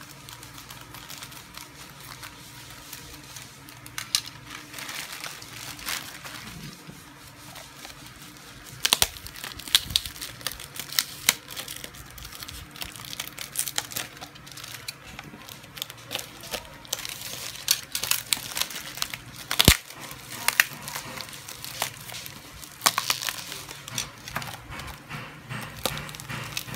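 Plastic packaging crinkling and rustling as a plastic courier pouch and the clear plastic wrap around a fidget spinner's case are handled and cut with scissors. Irregular crackles and sharp clicks, busier in the second half, with one especially sharp click a little past the middle.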